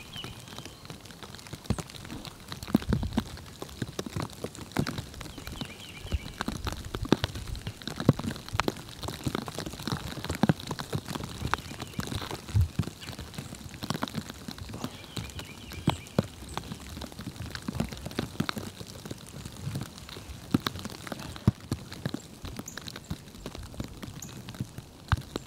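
Irregular light taps and clicks, several a second, with a few faint, short, high bird chirps about six and sixteen seconds in.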